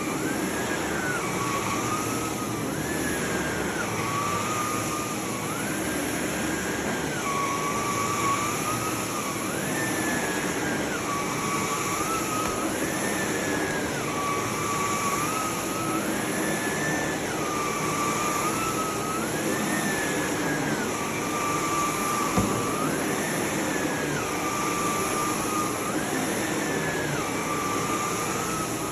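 Sebo D4 canister vacuum cleaner running, its motor whine rising in pitch and dropping back about every three seconds, as the load changes with each back-and-forth stroke of the nozzle. A single knock is heard about two-thirds of the way through.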